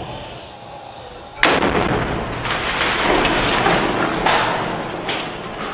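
An artillery shell exploding on impact: one sharp, loud blast about a second and a half in, followed by several seconds of rumbling noise with scattered cracks as the blast dies away.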